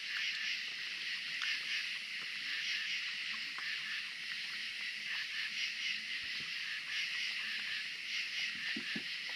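A steady chorus of night insects: a dense, high, pulsing buzz. Faint scattered clicks come from a raccoon eating at a wooden feeding table.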